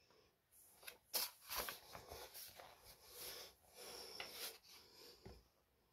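Faint rustling of a picture book's paper page being turned by hand, with a few brief soft clicks about a second in.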